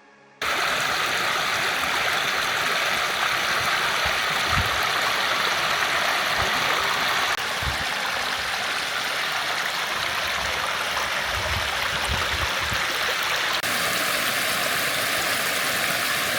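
Steady rush of creek water cascading into pools, starting abruptly just after the start, with a few dull low thumps mixed in.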